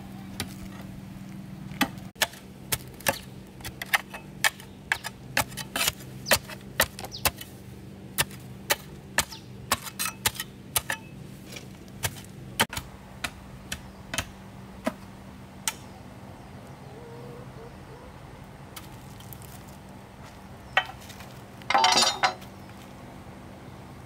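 Pole tamping soil around a bamboo post: a run of sharp knocks, about two a second, for some fourteen seconds before they stop. One more knock and a brief louder noisy burst come near the end.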